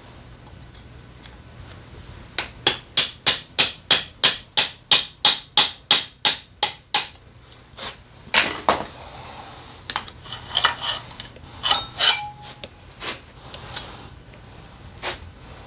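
A hammer tapping on engine parts during a motorcycle engine teardown: a quick even run of about eighteen strikes, roughly four a second, then scattered metal knocks and clicks as parts are handled.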